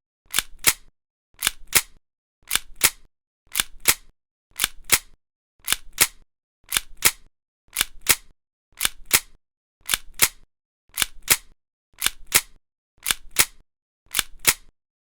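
A gun being cocked over and over: each cycle is two sharp metallic clicks about a quarter second apart, the action drawn back and released, repeated about once a second some fourteen times and stopping near the end.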